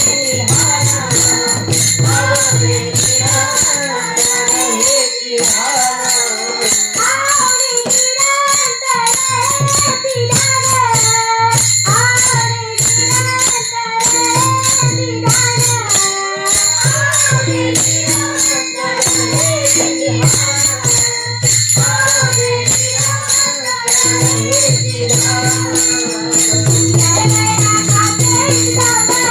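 Devotional Marathi kirtan singing: a voice sings a wavering melody over steady, rhythmic jingling metal percussion with continuous high ringing, and a pulsing low accompaniment.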